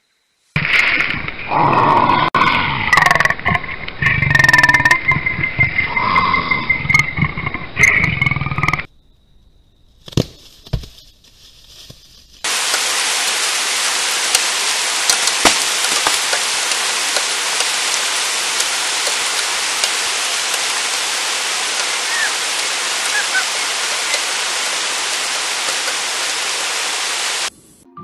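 A monkey's loud calls and screeches for about eight seconds, then, after a short pause, a steady even hiss of noise that holds level and cuts off near the end.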